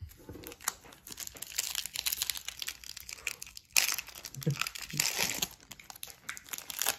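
A 2022 Topps Chrome trading-card pack's wrapper crinkling and tearing as it is opened by hand, with a loud sharp rip nearly four seconds in.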